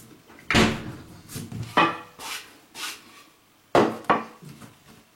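A series of sharp knocks and clinks of kitchen things being handled and set down, about six in all, the first and the one near the end the loudest.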